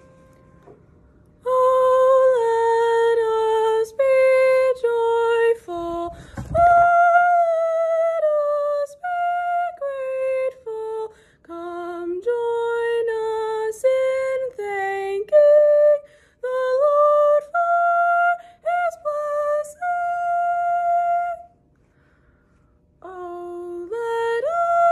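A solo female voice sings an unaccompanied soprano audition excerpt in held notes, phrase by phrase, with short breaks for breath. The last of the given starting-pitch note fades out just before she begins, and she pauses near the end before starting the next phrase.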